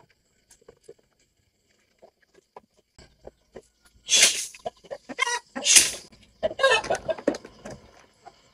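Chickens calling loudly in short bursts, about four times in the second half, after a few faint clicks.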